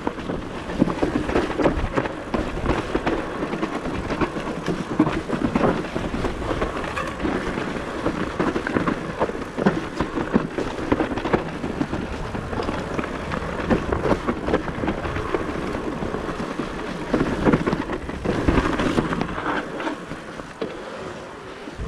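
Propain Ekano electric mountain bike being ridden down a rough trail: tyres rolling over dirt and roots, with a constant rattle of knocks and clatters from the bike.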